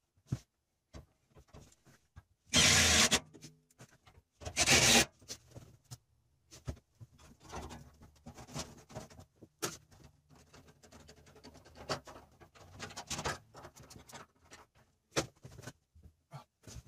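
Cordless drill driving screws in two short bursts a few seconds in, followed by light knocks, clicks and rubbing of parts being handled.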